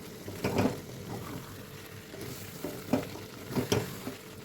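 Chicken and spice paste sizzling in a pan over raised gas heat, with a utensil scraping the pan in a few short strokes as it is stirred. The paste is being fried down until the oil separates.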